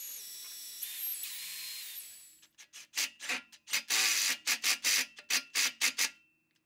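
Cordless drill motor whining at high pitch, its speed stepping up and down, for about two seconds. From about halfway a cordless impact driver hammers in short loud bursts, about three a second, driving a screw into a perforated metal guard plate.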